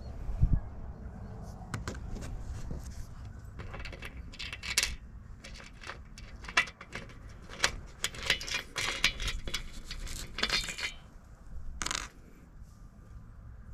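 Small steel bolt and nut clicking and clinking against an aluminum solar panel frame as they are handled at a mounting hole, in bursts of quick metallic taps.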